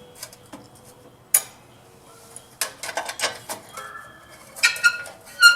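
Metal hand tools and engine parts clinking and clattering as they are handled: a sharp knock about a second in, then bursts of clinks, some with a brief metallic ring near the end.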